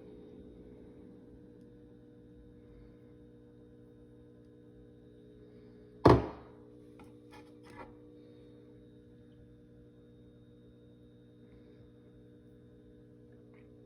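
Breville Dual Boiler espresso machine humming steadily. A single loud thunk comes about six seconds in, followed by a few faint clicks.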